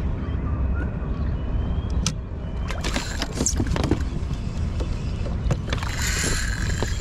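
Steady low rumble of water and wind around a fishing kayak, with scattered clicks and knocks of fishing gear being handled in the middle and a short hiss about six seconds in.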